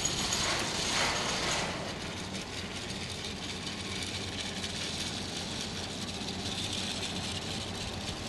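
Fira cable car gondolas running along the line: a continuous rapid mechanical clicking and rattling from the cabins' grips and the cable running over the pulleys, a little louder in the first two seconds.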